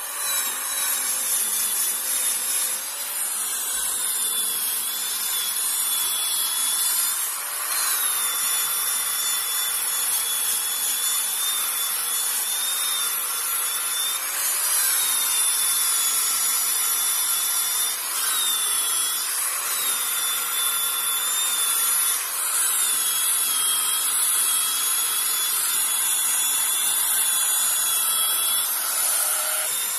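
Electric drill spinning an abrasive wheel brush against carved wood, cleaning out the carved design: a steady motor whine over a scrubbing hiss. The motor's pitch dips and recovers several times as it takes load.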